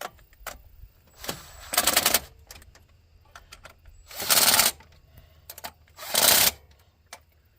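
Ratchet wrench clicking in three short bursts of rapid clicks, running down the bolts of a carburetor spacer on a throttle body elbow.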